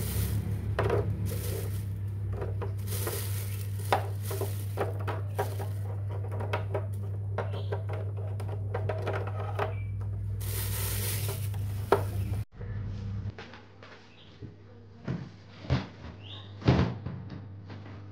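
Eggs clicking against each other and the plastic box as they are set in one by one, with a plastic bag crinkling now and then and a steady low hum underneath. About twelve seconds in the hum stops and a few scattered knocks follow.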